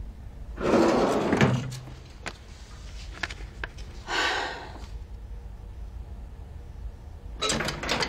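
A wooden drawer sliding open on its runners, followed by small clicks of things being handled and a brief rustle. Near the end comes a clatter of a front door being opened.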